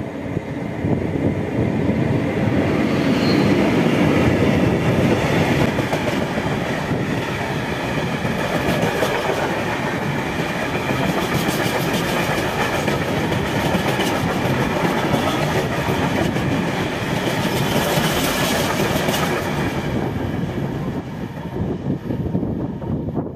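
Freight train passing close by behind an electric locomotive: the rumble builds and peaks as the locomotive goes past, then a long run of covered freight wagons rolls by with steady clickety-clack of wheels over the rails, easing off near the end as the train moves away.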